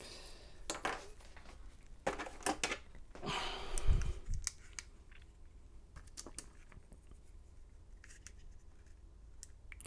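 Small sharp clicks and ticks, with a longer rustle and a dull knock about four seconds in: small metal lock pins and a sheet of paper being handled on a workbench as the pins are set out for measuring.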